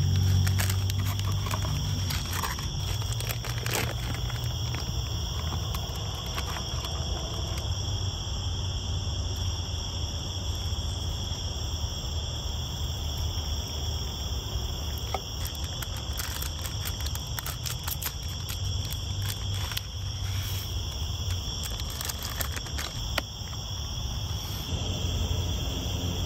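Steady chirring of night insects over a low steady rumble, with crinkling of a foil food pouch and small handling clicks in the first few seconds.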